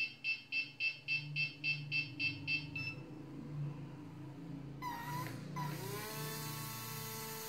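A rapid run of high electronic beeps, about three a second, stops about three seconds in. Then the small electric motors of a homemade foam RC plane built on V911 helicopter electronics give two short whirs and spin their 75 mm propellers up with a rising whine that levels off into a steady high whine.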